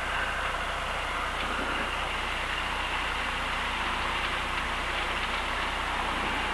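Cessna 172's piston engine and propeller running steadily at low taxi power, heard from inside the cockpit as the plane rolls slowly over grass.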